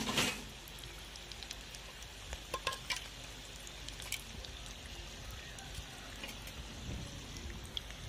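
Samosas deep-frying in hot oil in a metal pan: a steady bubbling sizzle with scattered sharp crackles and pops, the loudest right at the start and a small cluster a little before halfway.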